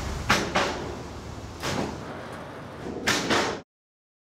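Five or so sudden clunks and slams from pickup trucks being loaded into autorack rail cars, over a low rumble, then the sound cuts off abruptly.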